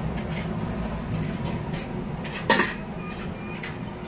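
Stainless steel stockpot and its lid clanking as they are handled: a few light taps and one loud metallic clank about two and a half seconds in.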